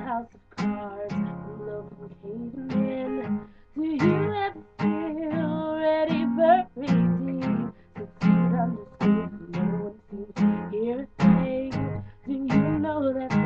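A woman singing a song while strumming an acoustic guitar, the strums falling at a steady rhythm under her held, sliding vocal notes.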